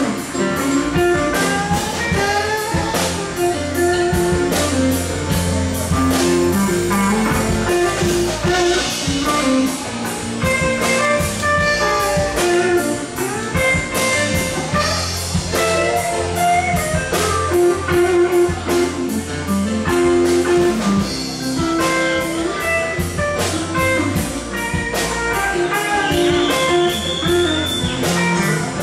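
Live band playing an instrumental break of a blues-rock cover: a guitar lead over a steady drum-kit beat and a sustained low bass line. A single high note slides upward near the end.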